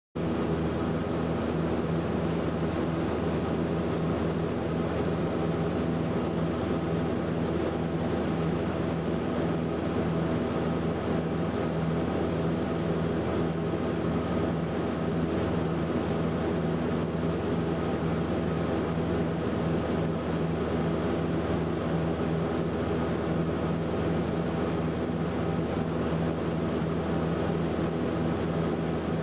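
Steady drone of a Cessna 172's piston engine and propeller in level cruise, heard from inside the cabin. It cuts in suddenly at the start.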